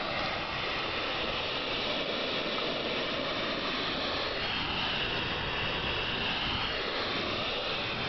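DC-to-DC converter in an electric car conversion hissing steadily. The converter still works despite the hiss.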